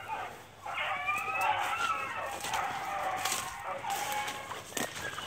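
A pack of beagles baying in the distance, several long, wavering howls overlapping: the hounds are trailing a rabbit. Branches scrape and click close by near the end.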